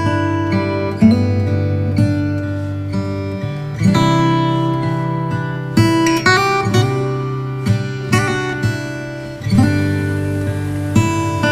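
Background music played on acoustic guitar: plucked chords that ring on, with new notes struck every second or so.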